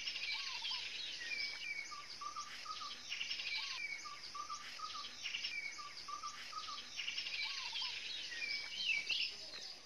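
Rainforest ambience: birds calling with short whistled chirps and warbles over a steady high insect buzz. The same calls recur about every three and a half seconds, and the sound cuts off suddenly at the end.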